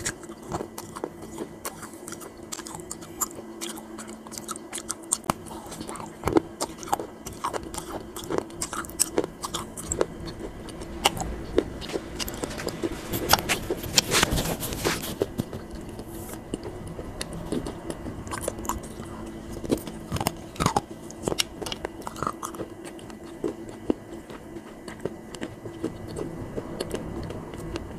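A person bites into clay pots and chews the pieces, making repeated sharp crunches. The crunching is densest about halfway through.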